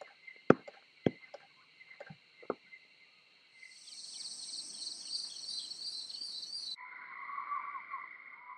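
Steady shrill chorus of crickets and other insects, which changes abruptly in pitch and fullness twice, about three and a half and seven seconds in. A few sharp knocks stand out in the first few seconds.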